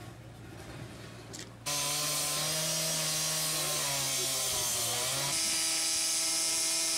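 Handheld petrol cut-off saw (disc cutter) running at high speed as its blade cuts through a wooden beam: a loud, steady whine that starts abruptly about a second and a half in. Its note shifts a little past the five-second mark.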